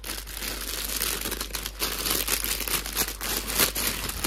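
Clear plastic garment bag crinkling and rustling as a hand presses and handles it, with many small crackles throughout.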